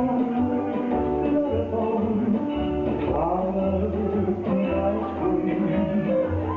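Instrumental music with held melody notes over a steady bass line.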